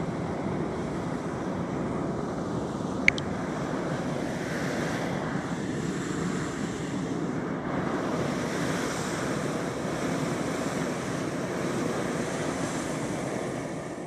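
A hot-air balloon's propane burner firing in one long, steady blast, with a brief sharp click about three seconds in.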